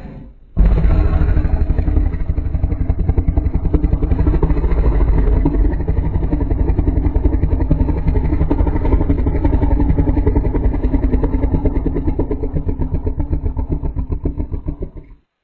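Designed monster sound effect for a dinosaur-like creature: a long, low, rapidly pulsing rumbling call that starts abruptly about half a second in and cuts off suddenly near the end.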